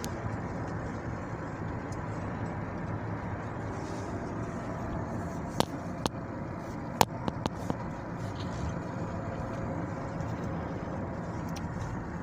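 Steady rumble of a car in a heavy rainstorm, heard from inside the car, with a few sharp taps about halfway through.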